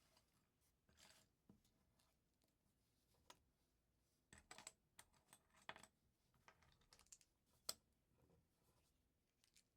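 LEGO plastic pieces being handled and snapped together: scattered small clicks and taps, some in quick clusters, the sharpest about three-quarters of the way through.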